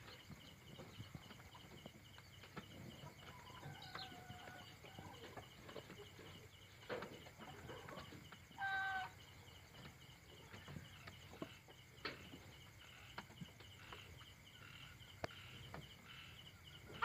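Roosting domestic chickens at night making soft, sleepy calls: a faint falling call about four seconds in and a short, louder call about nine seconds in, with a few faint clicks and rustles between.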